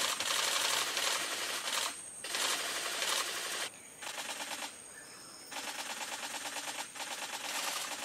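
Camera shutters firing in rapid continuous bursts: a long run of fast clicking, a brief pause, a shorter run, a quieter gap just before halfway, then steady clicking again through the second half.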